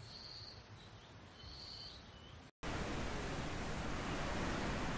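Small birds chirping a few times over a faint low rumble. About two and a half seconds in, this cuts to a much louder, steady rush of heavy storm rain and gusting wind.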